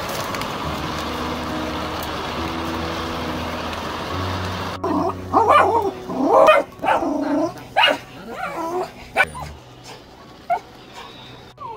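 A steady hiss with faint background music for the first few seconds, then a schnauzer barking and whining: a string of rising-and-falling cries and short barks, dying down near the end.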